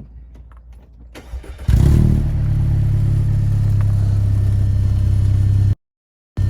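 Audi A4 2.0T turbocharged four-cylinder engine starting about two seconds in with a short flare, then idling steadily; it cuts off suddenly near the end.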